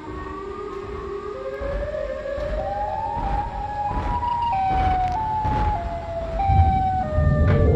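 Siren Head siren sound effect: a siren-like wail that climbs in steps from low to high over about four seconds and then steps back down, over a low rumble that grows louder near the end.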